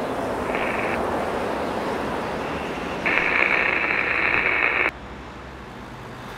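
Steady city street noise of traffic. A shrill, high-pitched sound cuts in briefly about half a second in, then louder for nearly two seconds from about three seconds in. After that the whole sound drops abruptly to a quieter hum.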